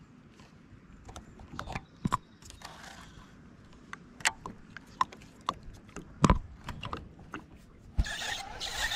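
Scattered clicks and knocks from a baitcasting reel being handled and cranked, with light knocks of tackle against the plastic kayak. About eight seconds in, a louder steady rushing noise starts.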